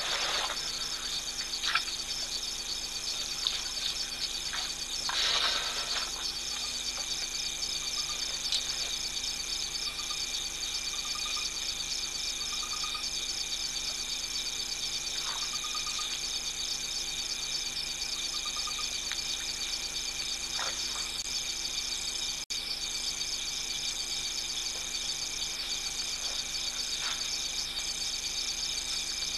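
Steady chorus of night insects, several high-pitched trills overlapping without a break. Two brief louder rushes of noise stand out, one at the very start and one about five seconds in.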